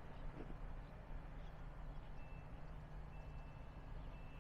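Faint outdoor background: a steady low rumble, with a few thin high-pitched beeps of uneven length in the second half.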